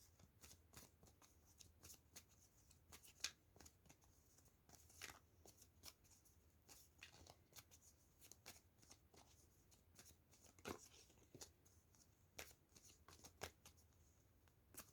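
Tarot cards being shuffled by hand, heard faintly as an irregular run of soft card flicks and slaps.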